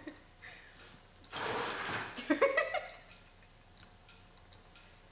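A person's breathy exhale about a second and a half in, followed by a short wordless vocal sound with wavering pitch, then quiet with a few faint clicks.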